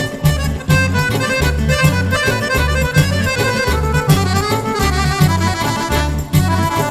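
Accordion-led band music in the Albanian popular folk style, with a melody line over a steady bass beat of about two pulses a second.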